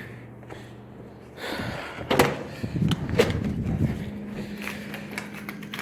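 Vending machine dollar-bill acceptor handling a bill: rustling and two sharp clacks about two and three seconds in, then a steady low hum from about four seconds in. The bill acceptor is jamming and not taking the bill.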